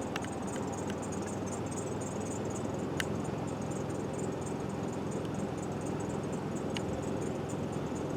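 Steady low background hum with faint high chirping and a few soft clicks.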